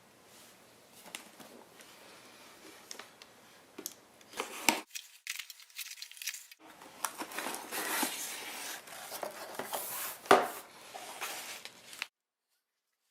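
Toy packaging being torn and crinkled open by hand, a dense run of crackling and tearing with sharp clicks. It pauses for about two seconds partway through, resumes with a loud snap about ten seconds in, and cuts off abruptly near the end.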